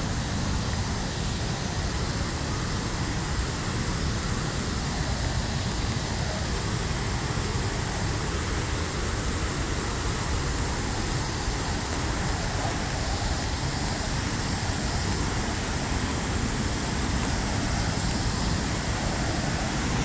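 Steady rushing of a large waterfall plunging into its pool, an even, unbroken noise.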